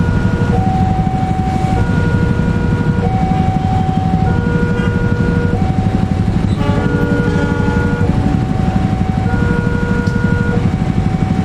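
Diesel-electric locomotive engine rumbling low and steady as it creeps along on a shunting move. Over it, a two-tone level-crossing warning alarm alternates between a lower and a higher tone about every second. A few extra tones join in briefly about seven seconds in.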